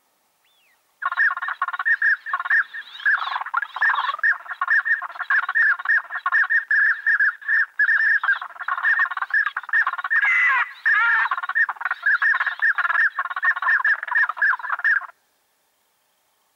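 A flock of ducks calling in a dense, rapid gobbling chatter with a few rising calls. It starts abruptly about a second in and cuts off near the end.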